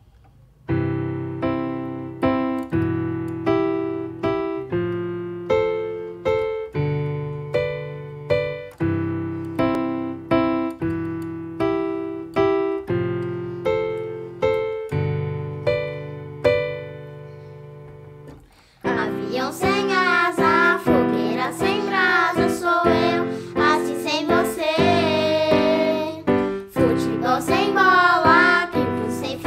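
Yamaha electronic keyboard on a piano sound playing a chordal introduction, each chord struck and left to fade. After a short quieter pause, about nineteen seconds in, children's voices come in singing the melody over the keyboard accompaniment.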